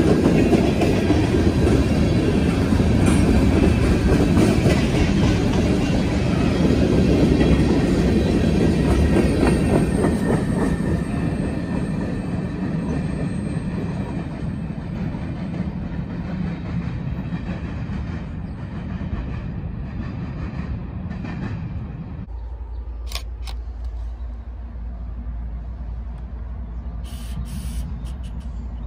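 Freight train of covered hopper cars rolling past, its wheels rumbling and clattering over the rails. The noise fades steadily as the tail end pulls away.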